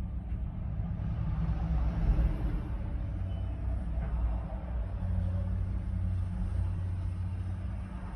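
Caterpillar tracked excavator's diesel engine running, a steady low rumble, as the machine swings its boom with the bucket raised.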